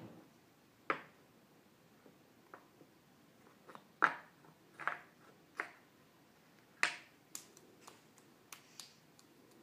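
Wooden puzzle pieces clacking and knocking against a wooden puzzle board, one sharp clack every second or so, the loudest about four seconds in. In the last few seconds come several hand claps.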